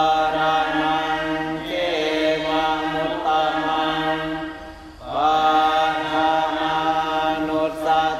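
Thai Buddhist evening chanting in Pali by monks and lay followers, recited on a near-steady pitch, with a short pause for breath about five seconds in before the recitation resumes.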